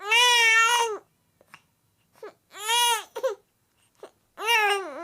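A baby crying: three high wails of about a second each, with short pauses between them.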